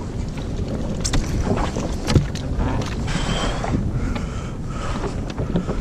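Wind buffeting the microphone and water against a jet ski's hull, broken by scattered short knocks and clicks.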